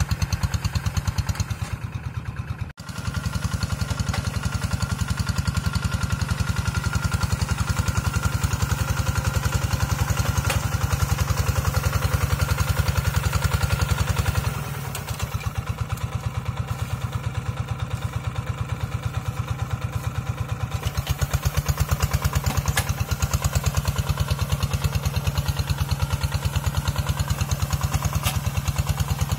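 Quick G1000 hand tractor's single-cylinder diesel engine running steadily under load with an even, rapid firing beat as it pulls a moldboard plow through sticky mud and straw. The level dips briefly about three seconds in and falls a little for several seconds past the middle.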